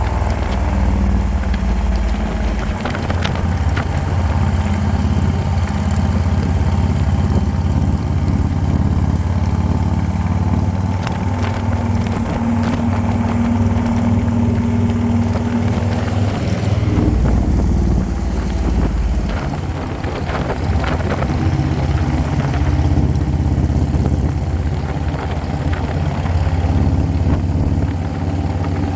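Harley-Davidson motorcycle engine running steadily while riding, a continuous low engine note that shifts slightly in pitch partway through.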